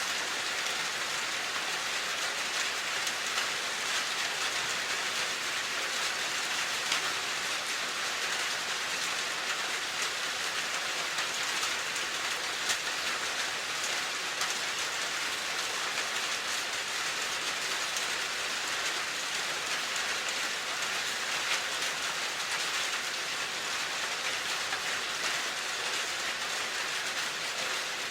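Steady rain falling, a constant hiss with scattered small drop ticks.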